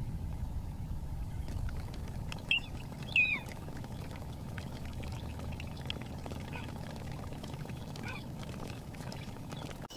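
Ducks calling: two short, high, falling calls close together a few seconds in and a fainter one near the end, over a steady low rumble.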